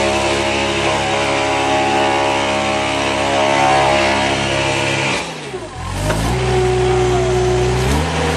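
Compact tractor engine running steadily while powering a hydraulic tree spade that digs out and lifts a root ball. About five seconds in its speed sags sharply as the spade takes the load, then recovers, and climbs again near the end.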